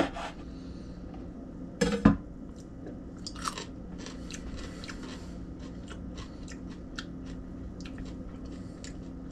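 A person biting into and chewing a raw serrano pepper, with many crisp crunches from the mouth. A knife knocks once on a wooden cutting board at the start, and the bite comes with a loud crunch about two seconds in. A steady low hum runs underneath.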